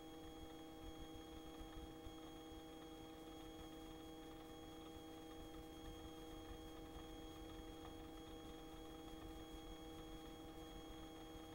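Near silence on the helicopter's recorded intercom feed between transmissions, holding only a faint, steady electrical hum of several even tones. No rotor or engine noise comes through.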